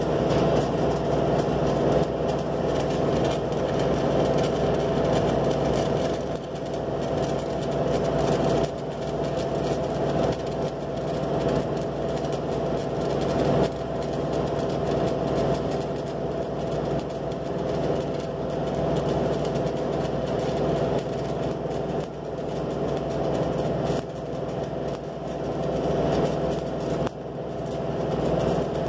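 Stick welding with an E6013 electrode in the horizontal position: the arc crackles and sizzles steadily over a steady hum, dipping briefly a few times.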